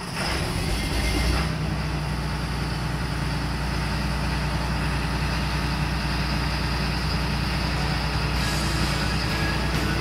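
John Deere 9600 combine's diesel engine, which comes in abruptly and runs steadily with a deep, even hum. This is the test run after a worn bearing on the engine's output shaft (PTO drive box) was replaced.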